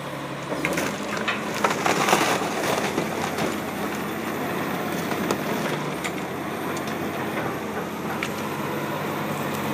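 Komatsu wheel loader's diesel engine running steadily as its bucket crushes a boat hull and garbage, with cracking and crunching that is heaviest about two seconds in and scattered after.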